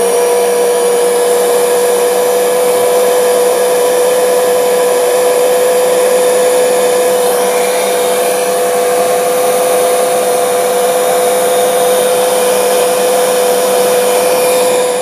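Electric heat gun running steadily, blowing hot air to shrink heat-shrink tubing: a steady fan whine at one pitch over a rush of air.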